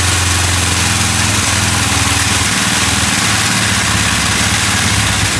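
1981 Honda CB750's air-cooled DOHC inline-four engine running loud and steady, its note shifting slightly about halfway through.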